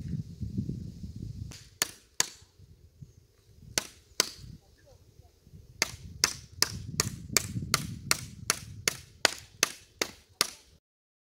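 Sharp, repeated blows of a hand tool during fence repair work: a few spaced strikes, then a fast, even run of about three a second that cuts off suddenly near the end.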